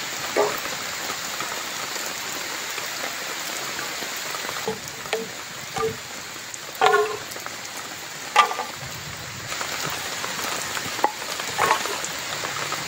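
Steady patter of rain, with a handful of short, sharp sounds over it, the loudest about seven and eight and a half seconds in.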